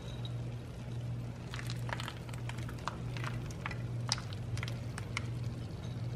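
Crushed pistachio pieces sprinkled by hand onto syrup-soaked baklava, landing as light, irregular ticks and pattering over a steady low hum.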